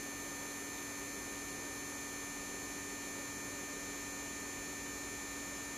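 Steady electrical hum from powered-up bench electronics, with faint thin high-pitched whines over a low hiss, unchanging throughout.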